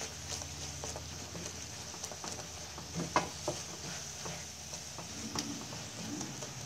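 Spatula stirring and scraping a thick apple-and-milk mixture in a nonstick frying pan, with irregular soft scrapes and taps against the pan, as the milk is cooked down until dry.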